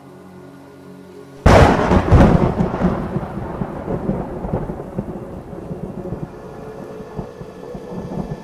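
A sudden loud thunderclap about a second and a half in, rumbling away over the following seconds into the hiss of rain. Quiet held music tones come before it.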